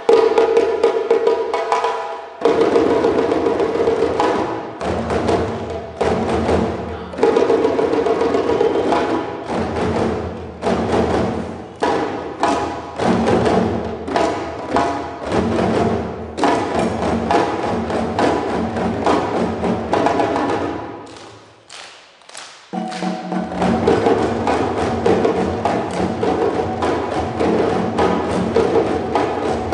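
A djembe drum ensemble playing a fast, continuous rhythm of hand strokes. The playing stops briefly about three-quarters of the way through, then comes back in.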